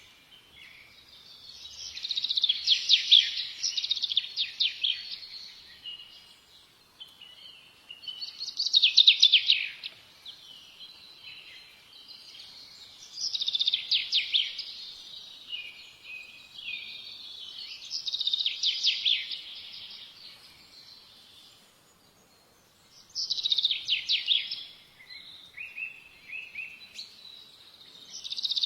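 Songbird singing: short phrases of rapid, high chirping notes, repeated every four to five seconds with brief pauses between them.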